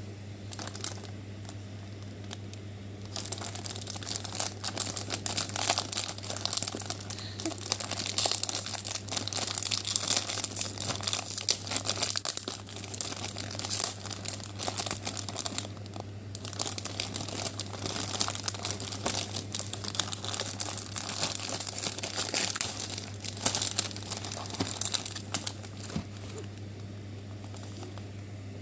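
Oreo cookie packaging being opened by hand: crinkling and tearing of the wrapper, in irregular bursts that start a few seconds in, pause briefly about halfway and die away near the end. A steady low hum runs underneath.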